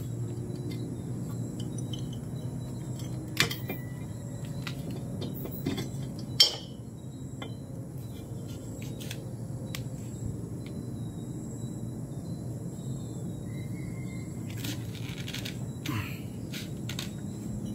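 Scattered metallic clinks and knocks as the finned cylinder head of a Yamaha RXS/RXK two-stroke motorcycle engine is worked loose and lifted off by hand. The loudest is a sharp knock about six seconds in.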